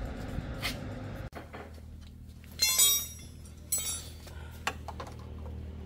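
A low engine-like rumble cuts off about a second in. It gives way to a steady hum and a few sharp clinks of hard objects, two loud ones that ring briefly and one softer, like dishes or glassware being handled.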